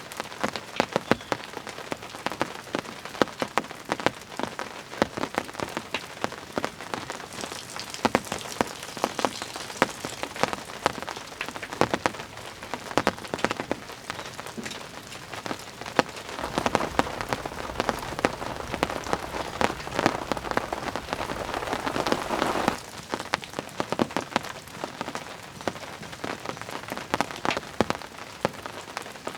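Rain falling, with many irregular drops striking a nearby surface as sharp ticks. A denser rushing sound swells about 17 seconds in and cuts off abruptly about six seconds later.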